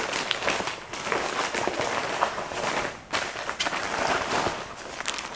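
Rustling and crinkling of fabric and a plastic zip-top bag being handled, with a spare set of clothes being packed into a school bag, in a string of short irregular scuffs.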